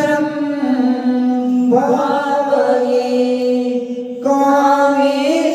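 Sanskrit devotional chant of a dhyana verse, sung by voices on long held notes that step up and down in pitch, with a short break about four seconds in before the next phrase.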